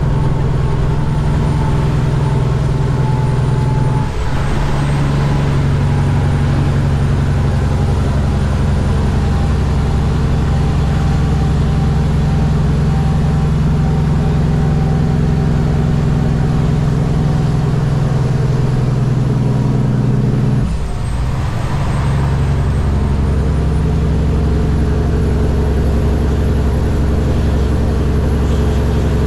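Kenworth W900 semi truck's diesel engine running steadily on the highway. The sound dips briefly twice, about four seconds in and again about twenty-one seconds in, with the engine's tone changing after each dip, typical of gear changes. A faint high whine sags at each dip and then recovers.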